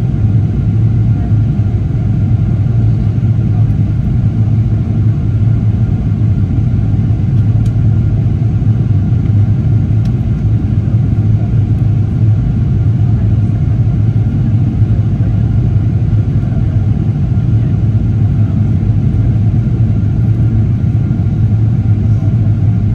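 Steady low rumble of a Boeing 777-300ER airliner in flight on approach: engine and airflow noise as heard from inside the cabin, with a faint thin whine running under it.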